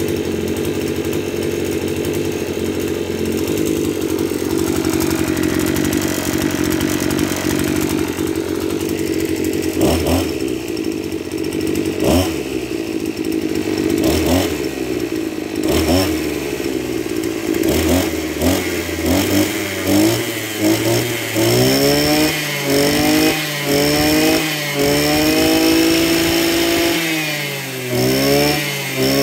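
Maruyama BIGM AC265STD brush cutter's 26 cc two-stroke engine running steadily for about ten seconds, then revved in repeated short throttle blips, each rising in pitch and dropping back, coming quicker toward the end.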